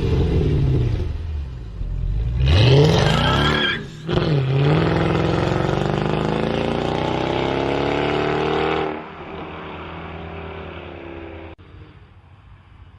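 Mercedes E55 AMG's supercharged V8 exhaust. It revs sharply about two and a half seconds in and drops back. Then it makes a long pull, rising steadily in pitch for about four seconds as the car accelerates, and eases off to a quieter, steady run in the last few seconds.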